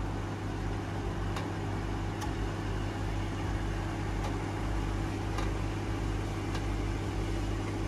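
Ram TRX's supercharged V8 idling with a steady low hum as the truck creeps slowly down a rock ledge, with a few faint clicks.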